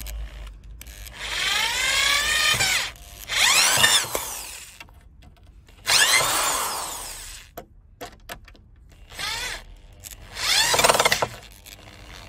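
Cordless drill-driver driving a screw into a wooden post, in about five bursts of motor whine that rise and fall in pitch as the trigger is squeezed and the screw bites into the wood.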